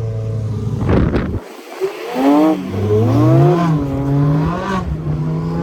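Ferrari 458 Speciale's straight-piped flat-plane V8 on the move. About a second in, a sharp crack comes as the throttle closes and the sound briefly drops away. The engine then revs up and down several times through the bends.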